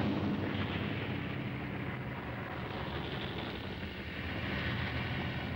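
Volcanic eruption rumbling: a steady low roar with a hiss above it, with no separate blasts.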